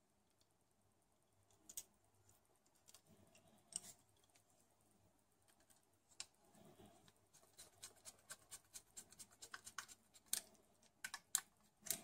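Faint small clicks of a precision screwdriver turning a tiny screw into a laptop hard drive's metal bracket. A few isolated clicks at first, then a quicker run of ticks, about two or three a second, in the second half, with a few louder ones near the end.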